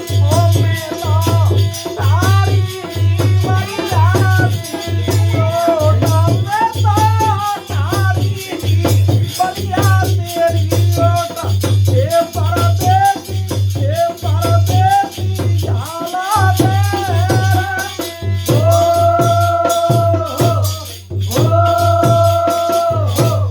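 Music for a Holi folk song: a steady low drum beat with rattle percussion under a wavering melody line, which holds two long notes near the end.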